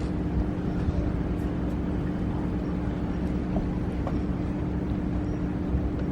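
Steady ballpark background noise: a low rumble with a constant low hum.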